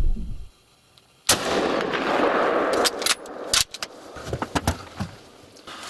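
A single gunshot fired at a deer about a second in, its report rolling on for more than a second before dying away, followed by two sharp clicks.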